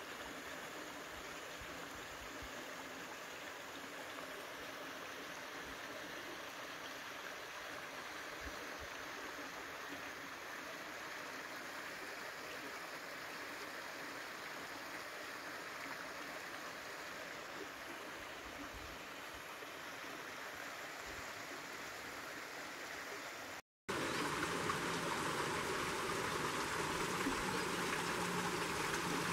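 Water of a stream running over rocks, a steady rushing. It breaks off for an instant about 24 s in and comes back louder.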